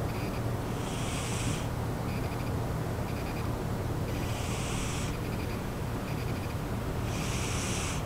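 Domestic cat snoring in its sleep: a hissing breath about every three seconds, with a faint fluttering breath between them. A steady low hum sits underneath.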